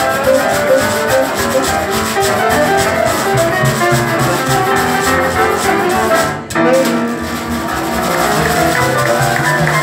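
Live hot-jazz band playing, with piano and a washboard scraped in rhythm. The music stops for a brief break about six and a half seconds in, then plays on.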